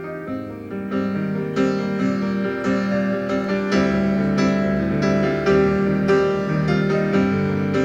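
Piano music: chords and melody notes struck one after another and left ringing, in a live instrumental performance.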